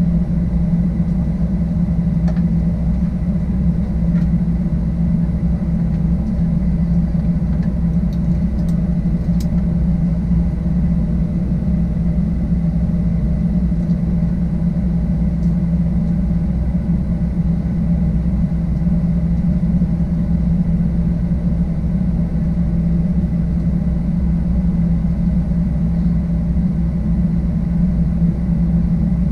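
Steady low hum inside the cabin of a Boeing 737-800 standing still on the ground before takeoff, heard from a window seat behind the wing: engine and air-system noise, even in level throughout.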